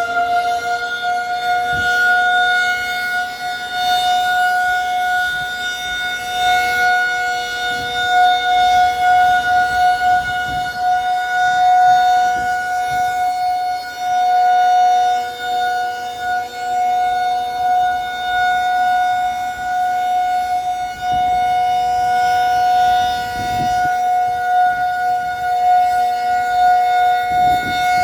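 Outdoor warning siren sounding its steady one-minute alert tone at full pitch, one unwavering note with its loudness swelling and dipping.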